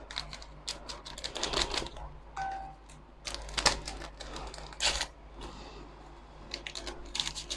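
A kitchen utensil clinking and tapping irregularly against a mixing bowl as flour is scooped into cake batter, with a run of light clicks and knocks.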